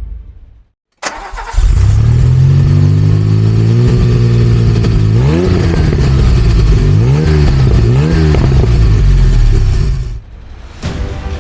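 DeLorean DMC-12's PRV V6 engine, with a Stage 2 tune, is cranked briefly and catches, then runs at a steady fast idle. It is then blipped four or five times, with quick rises and falls in revs. The engine sound cuts off near the end as music returns.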